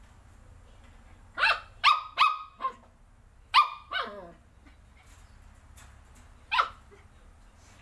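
A dog barking: a quick run of four barks about a second and a half in, two more about a second later, the second trailing down in pitch, and a single bark near the end.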